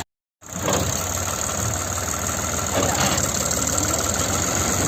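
Heavy machine's diesel engine running steadily at a low, even idle. The sound drops out completely for a split second at the very start, then the engine resumes.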